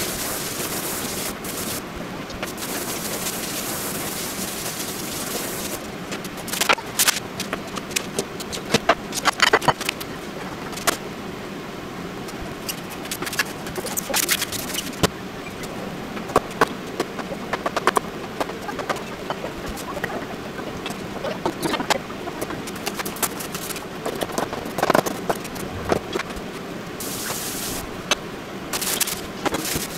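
Handling noises of plastic cling film pulled from its box and crinkled over a plate of sliced sweet potato, with scattered clicks and rustles from about six seconds in over a steady background hiss.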